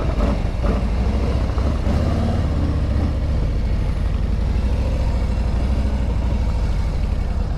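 Harley-Davidson Road Glide's V-twin engine running with a steady low rumble as the motorcycle gets under way. Its pitch rises and falls in the first few seconds.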